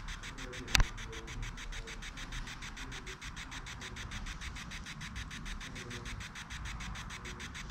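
Ghost box sweeping through radio stations: a steady rapid chopping of static, about seven pulses a second. One sharp click just under a second in.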